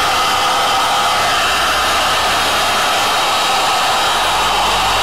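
Hot air rework station blowing a steady hiss of hot air, warming the circuit board and the USB socket gradually before desoldering.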